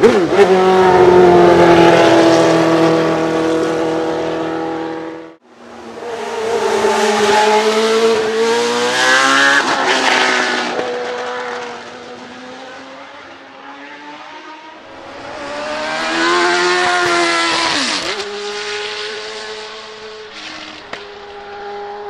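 Judd 3.5-litre naturally aspirated V8 of a Leyton House March Formula One car revving hard in three separate bursts. The engine note climbs in pitch under acceleration, drops sharply at a gear change or lift-off, then holds a lower, steadier note.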